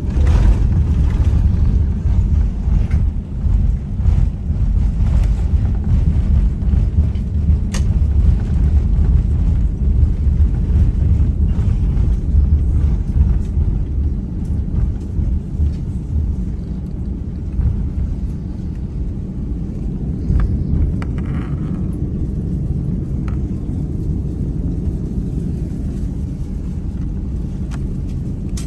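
Jet airliner heard from inside the cabin during the takeoff roll: a loud, steady engine roar with a deep rumble, easing a little in the second half.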